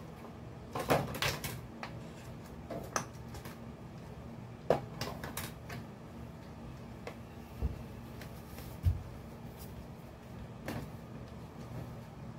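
Scattered clicks, taps and crinkling of a plastic hair-dye sachet and a clear plastic box being handled as the sachet is opened and its contents put in the box, with a couple of duller knocks about eight and nine seconds in.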